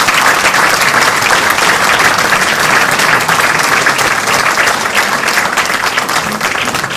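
Audience applause: many hands clapping steadily, easing off a little near the end.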